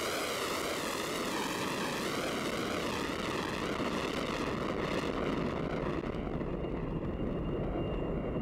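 Rocket motor of a ballistic missile at lift-off: a loud, steady rush of exhaust noise with a slow wavering sweep through its tone. The upper hiss dies away about six seconds in while the lower part goes on.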